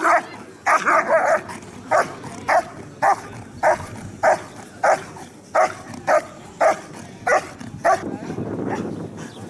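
German Shepherd barking in a steady, rhythmic series at a protection helper's bite sleeve, about one and a half barks a second. The barking stops about eight seconds in.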